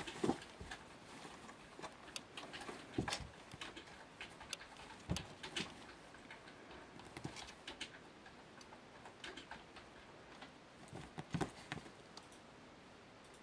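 Irregular soft taps, scratches and fabric rustles as a tabby kitten paws and tugs at a bedsheet, with a few louder knocks scattered through.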